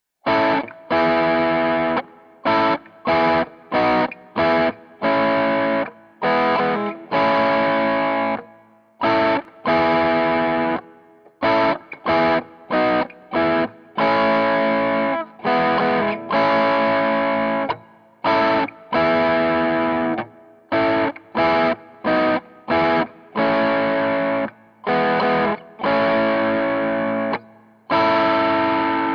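Electric guitar through a Zoom G11 multi-effects patch with a light overdrive, playing a rhythm part of short chord stabs that cut off sharply, with a few chords held for about a second, and no backing.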